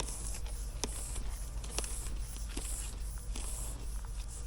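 3/8-inch PEX tubing being fed by hand through a PVC drain pipe: repeated short rubbing, hissing scrapes with a few light clicks, over a steady low hum.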